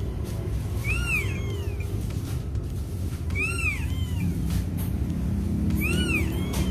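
Newborn kitten mewing: a few short, high-pitched mews, each rising and falling in pitch, spaced a second or more apart. These are the cries of a kitten that was born limp and not breathing and has been revived by rubbing.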